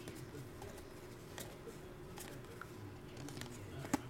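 Panini NBA Hoops basketball trading cards being flipped and slid against one another by hand: faint, scattered light flicks and clicks, with one sharper click near the end, over a faint steady hum.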